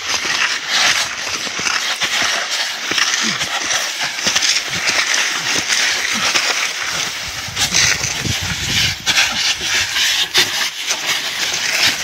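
Clothing and chest-rig gear scraping and rustling over dry, dusty ground during a low army crawl, with short grunts and heavy breathing from the exertion.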